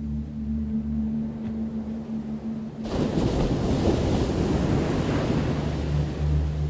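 A steady low ambient drone, then about three seconds in an ocean wave breaks with a sudden loud crash and hissing wash of surf that carries on to the end, the drone coming back under it near the end.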